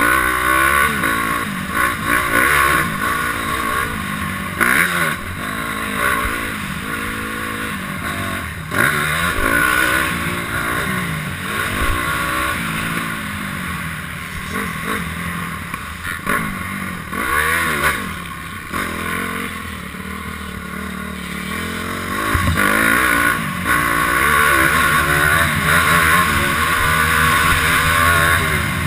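Honda CRF250R's single-cylinder four-stroke engine revving hard, its pitch rising and falling over and over as the rider accelerates and backs off. It gets louder for the last several seconds.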